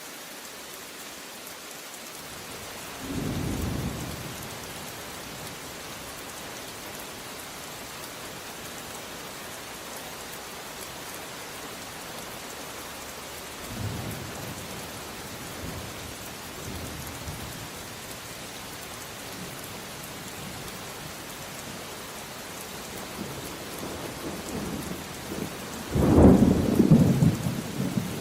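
Steady heavy rain hissing throughout, with rolls of thunder rumbling in: a short one about three seconds in, fainter ones in the middle, and a louder, longer rumble near the end.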